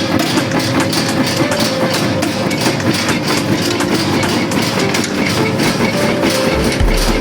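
Peanut grinding and sorting machine running steadily: a constant motor tone under a dense, continuous rattle. A deep bass beat comes in near the end.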